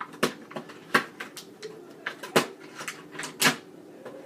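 Scissors cutting open a toy box and the packaging being handled: a series of sharp, irregular clicks and snaps, the loudest about two and a half and three and a half seconds in.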